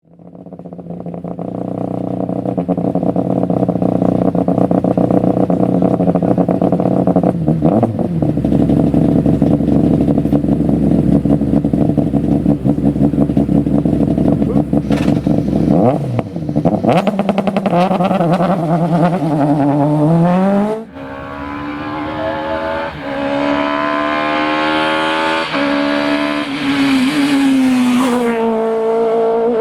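Citroën C2 rally car engine running at steady high revs for about the first half. It then accelerates hard: the pitch climbs and drops sharply at each upshift, several gear changes in quick succession.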